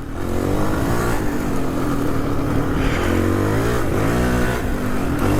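Honda CRF450's single-cylinder four-stroke dirt bike engine running under throttle, its pitch rising and falling several times as it is ridden.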